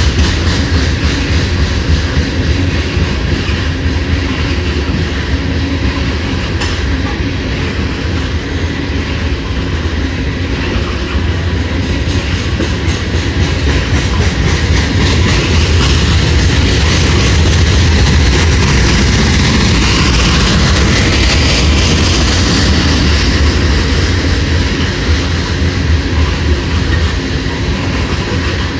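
Coal hopper cars of a freight train rolling past: a steady, loud rumble and clatter of steel wheels on rail.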